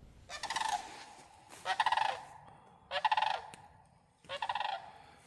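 Bird calling four times, about a second apart, each call a rapid rattling burst lasting around half a second.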